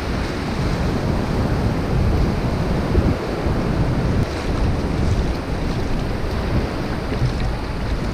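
Wind buffeting the microphone over surf washing up the beach: a steady, gusty rush heaviest in the low end.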